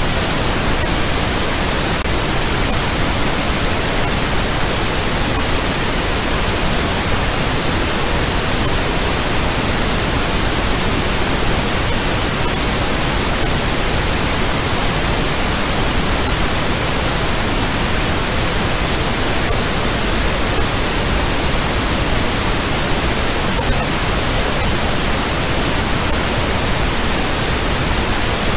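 Steady, unchanging hiss of generated noise, like static, played as the audio of a morphic field track.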